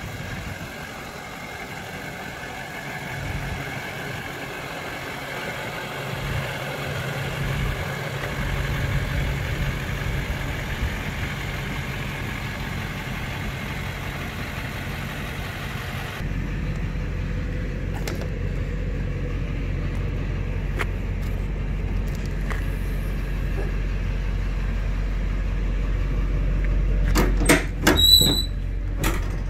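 Chevrolet Duramax 6.6-litre V8 turbodiesel idling steadily. Near the end come a few sharp clicks and a short squeak as the pickup's tailgate is unlatched and lowered.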